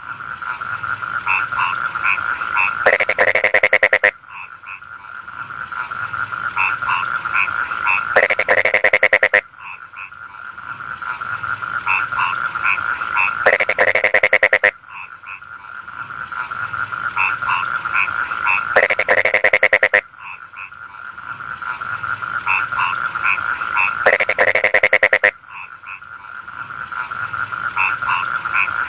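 Rice-field frogs croaking in chorus: a steady trilling background, with a loud, fast rattling call of about a second that comes back roughly every five seconds.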